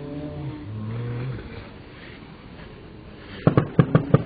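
Fireworks played back slowed down, so they sound deeper: a quick run of about five sharp bangs about three and a half seconds in.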